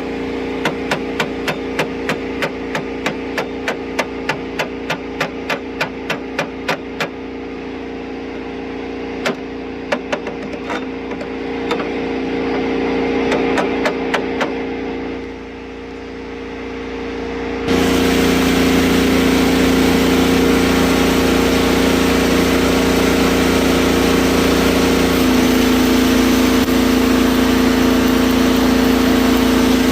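Rebuilt diesel engine of a Mustang skid steer running steadily, with sharp clicks about three times a second through the first several seconds. About 18 seconds in the sound jumps suddenly louder and fuller and stays there.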